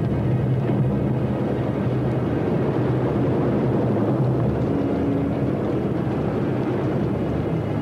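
Steady low roar of volcanic gas and steam venting.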